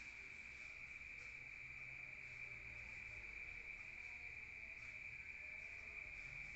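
Crickets chirping at night in one steady, unbroken high trill, faint, over a low rumble.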